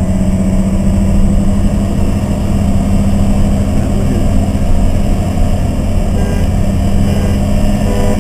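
Sports car engine pulling hard in gear during a run, heard from inside the cabin: a loud, steady note that climbs slowly, over heavy road and wind noise.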